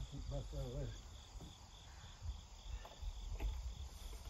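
Insects chirping in a steady, even pulse, with low wind rumble on the microphone and a couple of faint knocks.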